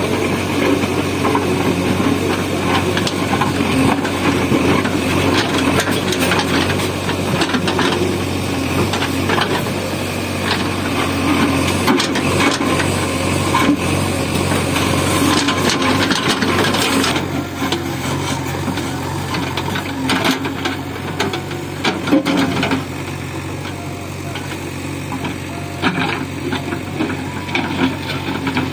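JCB backhoe loader's diesel engine running under load, with scattered knocks and rattles from the digging as the bucket breaks up asphalt road. The engine drops somewhat in level about two-thirds of the way through.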